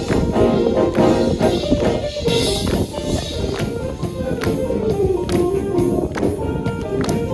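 High-school marching band playing, with regular percussion strokes over held band chords.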